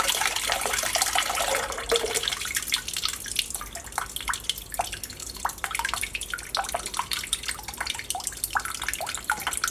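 Water from a sink faucet running into a basin, then the stream stops about two seconds in. After that, scattered drops drip and plink, a few a second.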